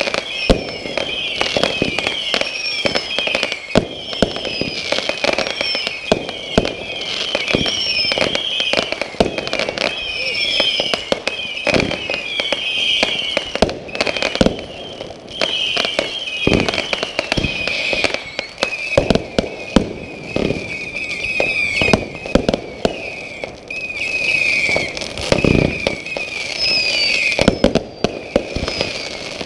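Fireworks firing in quick succession: shot after shot launches and bursts in a steady stream of bangs and crackles. A high, wavering whistle-like tone runs underneath throughout.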